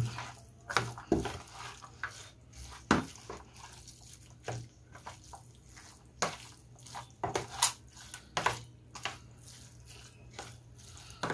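Raw ground pork mixture being stirred with a metal utensil in a plastic tub: irregular wet squelches and light clicks of the utensil against the plastic.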